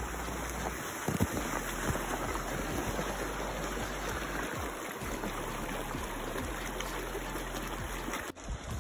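Shallow mountain creek running over rocks between snow banks, a steady rushing of water. A few brief low knocks about a second in.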